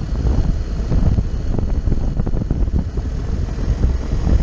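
Wind buffeting a helmet-mounted microphone over the low, steady running of a Honda X-ADV motorcycle and its tyres on asphalt.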